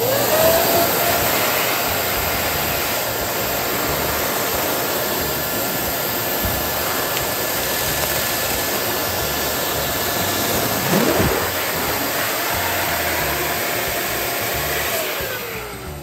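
Electric balloon air pump running steadily as it inflates a foil balloon, its motor whine rising as it starts up and falling away as it shuts off near the end.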